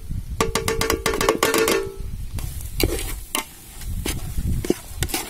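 A metal plate clatters rapidly against a large metal cooking pot, ringing with a steady tone, as spices are knocked off it into the pot. After that come scattered clanks and scrapes of a metal ladle stirring the spiced onion and egg in the pot.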